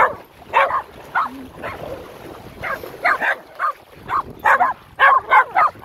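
A dog barking excitedly in play, short high barks and yips: a few scattered ones, then a quick run of them in the last couple of seconds.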